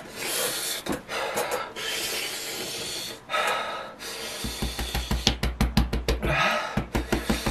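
A person huffing hard breaths out through an open mouth, long breathy exhales from the burn of an extremely hot chili chip. About halfway through, background music with a quick, steady beat comes in.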